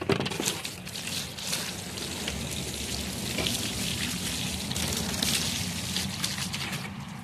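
Water from a garden hose spraying onto a fish and splashing over a plastic table top, running steadily.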